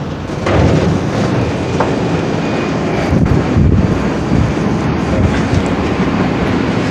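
An R62A subway car running along the track, with steady wheel-on-rail rumble and scattered clacks over rail joints. It gets louder about half a second in.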